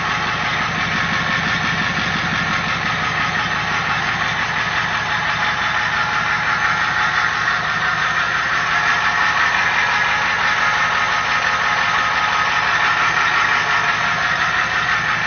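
1992 Ford F-250's 7.3-litre International V8 diesel idling steadily through a 6-inch straight-pipe exhaust, an even, low pulsing note.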